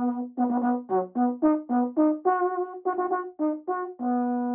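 Solo brass instrument playing a call-like phrase: a held note, then a quick run of short notes stepping up and down in pitch, then a long held note near the end.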